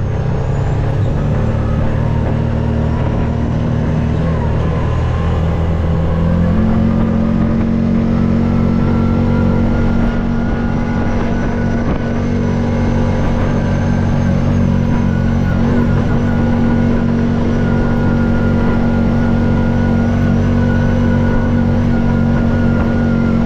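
Off-road vehicle engine running steadily under way. Its pitch steps up about six seconds in and then holds steady.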